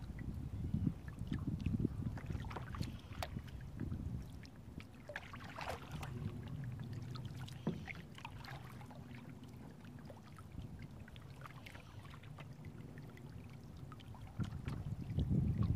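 Kayak paddling on calm water: paddle blades dipping and dripping, with scattered small splashes and drip clicks over a steady low rumble that swells near the end.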